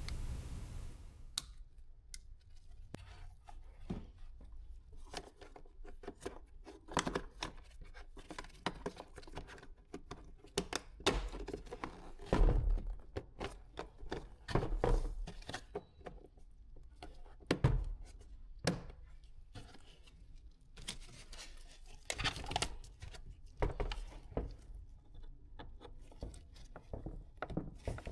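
Irregular clicks, knocks and thunks of plastic car-door parts being handled while a Fiat 500's interior door panel is offered up and its handle cable and electrical connector are reconnected. A few heavier knocks come about halfway through and again near the end.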